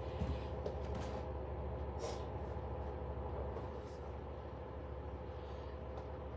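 Steady low mechanical hum of room background, with a few soft rustles and clicks as someone moves about handling things, the clearest about two seconds in.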